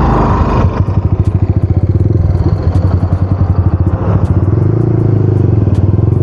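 Yamaha R15 V3's single-cylinder engine running close by with a fast, even idle pulse, picking up a little about four seconds in as the bike moves off. Under a second in, a louder, rougher engine sound nearby cuts off.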